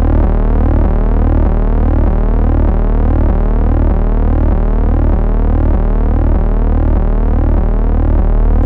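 Loud synthesized alert tone: a deep steady hum pulsing about twice a second, with a repeating warbling sweep above it.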